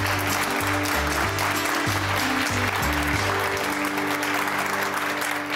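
Studio audience applauding over the show's closing theme music, which has a pulsing bass line that drops out about three and a half seconds in while the clapping goes on.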